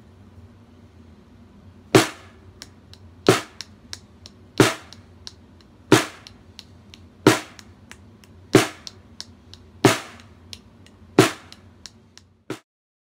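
Snare drum muffled with tape strips and an object laid on its head, played as a slow groove: a loud accented stroke about every 1.3 seconds with quiet ghost strokes in between. It stops suddenly near the end.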